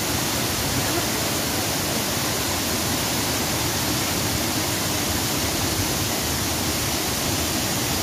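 Small waterfall, water pouring over a wide rock ledge and splashing onto boulders below: a steady, even rush of water.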